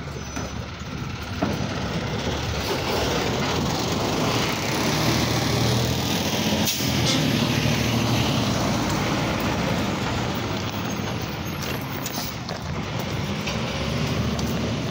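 Automated side-loader garbage truck's engine running and revving up, loudest in the middle, with a hiss of air brakes and a single sharp clack about two-thirds of the way through.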